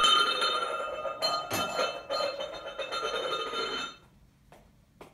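A flipped bottle clinks and rings as it rocks on a hard tile floor, with several small clatters, the ringing dying away about four seconds in.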